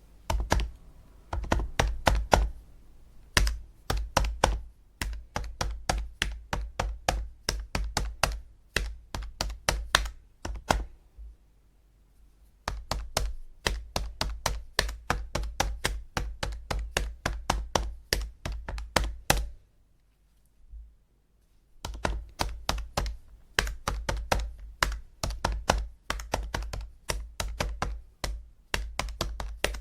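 Calculator buttons being pressed in quick runs of sharp clicks, several a second, pausing briefly twice.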